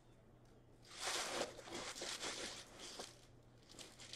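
Soft rustling of a torn-open foil hockey card pack and the cards being slid out by hand, for about two seconds, with a few faint ticks near the end.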